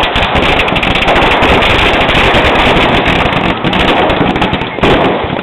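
Fireworks and firecrackers going off in a dense, continuous rapid crackle of pops, loud throughout, with a short lull a little before the end.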